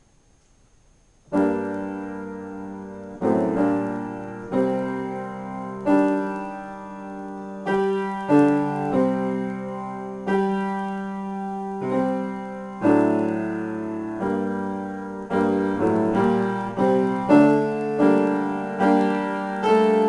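Solo piano improvisation: slow chords struck every second or two, each left to ring and fade, beginning about a second in.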